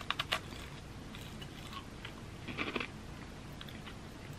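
A crisp, thin-layered shrimp and red wine senbei (palmier-style caramelized pastry cracker) crunching as it is bitten and chewed: a burst of crunching at the start, faint chewing, then a second burst of crunching a little past halfway.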